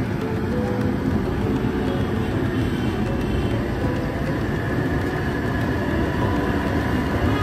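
Kachoris frying in a large iron kadhai of hot oil over a fire: a steady low rumble with a lighter hiss over it.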